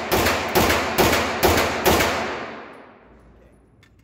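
Grand Power Stribog 9mm carbine with an HB Industries muzzle brake fired rapidly: five shots about half a second apart, each ringing on in the echo of an indoor range. The last shot comes about two seconds in, and its echo dies away about a second later.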